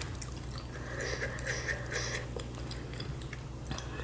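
Quiet eating sounds: soft chewing and light clicks of a wooden spoon and chopsticks working a meatball in a ceramic bowl, over a steady low hum.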